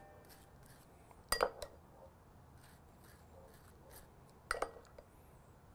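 A table knife clinking twice against the mustard dish as mustard is scooped, with faint scraping as it is spread on a toasted bun between the clinks.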